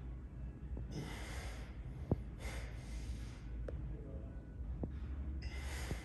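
A person breathing hard, with three forceful, hissing breaths spread across the few seconds. A single sharp click comes about two seconds in, over a steady low hum.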